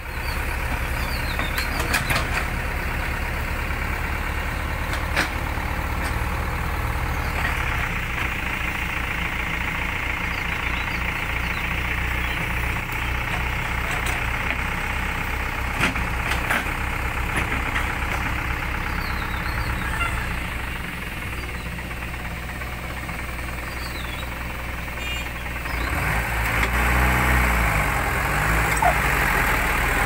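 JCB 3DX backhoe loader's diesel engine running steadily while the backhoe arm works, with a few short knocks. Near the end the engine note rises and wavers as the revs come up.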